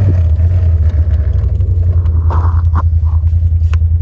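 Honda Talon 1000X-4 side-by-side's parallel-twin engine running with a steady, deep drone while driving, with a few short scraping sounds about halfway through.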